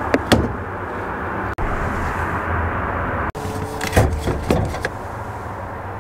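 Hood release lever of a 2024 Ford Ranger being pulled in the footwell: a couple of plastic clicks at the start, then a cluster of clicks and a knock about four seconds in as the hood latch lets go. Steady outdoor background noise runs underneath.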